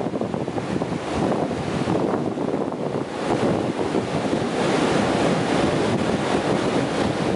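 Ocean surf breaking and washing up the sand, a steady rush of water that grows a little louder about halfway through, with wind on the microphone.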